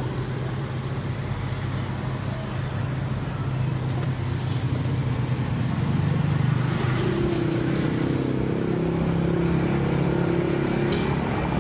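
A motor vehicle's engine running with a steady low hum; about six seconds in it grows louder and a higher tone joins.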